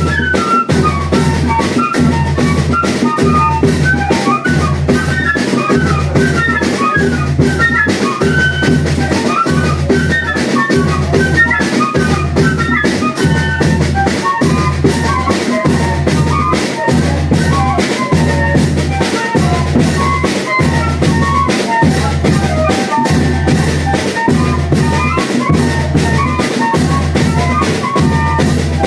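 Banda de pífano playing: fifes play a quick, high melody over a steady bass drum (zabumba) beat, with snare drum.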